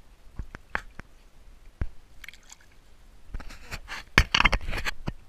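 Close knocks and rubbing on a body-worn action camera as its wearer walks in rubber boots, with his clothing brushing the microphone. A few scattered clicks at first, then a denser stretch of knocking and crackling rubbing about three to four seconds in.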